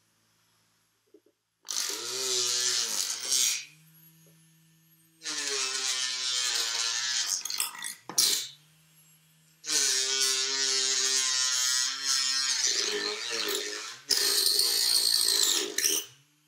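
Four buzzing bursts of about two to three seconds each, with a slightly wavering pitch, from a small sounding object played against a perforated metal grater and a cardboard box to make them resonate. A faint low hum lingers between the bursts.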